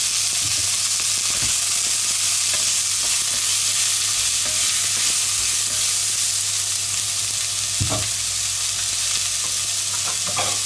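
Diced onions sizzling steadily in hot oil in an enamelled pot, stirred with a wooden spatula, with a few short knocks about 8 s in and near the end.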